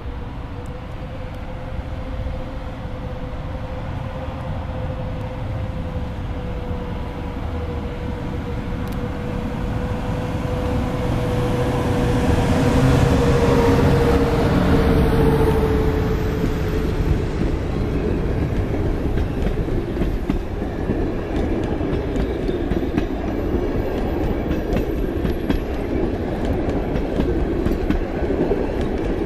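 EP09 electric locomotive hauling a passenger train departs and passes close by, its steady whine growing louder and dipping slightly in pitch as it goes past about halfway through. The coaches then roll by with wheels clacking over rail joints.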